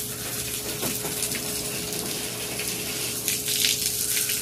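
A thin jet of water from a hose splashing onto a crocodile's head and back and the plastic tub floor: a steady spattering hiss, with a few louder splashes near the end and a faint steady hum underneath.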